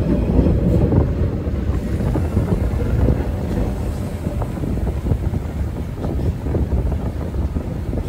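MBTA Red Line subway train rolling along the platform: a steady low rumble of wheels and running gear with a few faint clicks, easing off slightly. Wind buffets the microphone.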